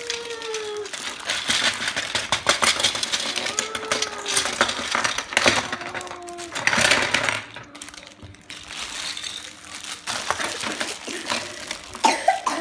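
Plastic Mega Bloks building pieces clicking and clattering on a table as they are handled and tipped out, mixed with plastic bag crinkling; the loudest burst comes about seven seconds in.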